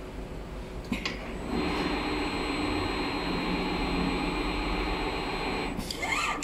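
Richpeace computerized quilting machine running: a steady mechanical hum with a high whine sets in about a second and a half in, after a click. Near the end a short whine rises in pitch as the machine moves.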